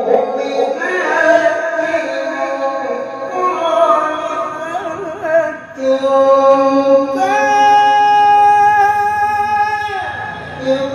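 A male qari reciting the Quran in the melodic mujawwad style into a microphone, drawing out long ornamented phrases. About seven seconds in he holds one long high note for some three seconds, breaks off, and starts again just before the end.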